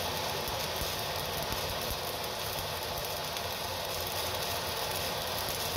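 Stick-welding arc of a 3.25 mm E7018 low-hydrogen electrode laying a hot-pass run: a steady, even crackling hiss with no breaks.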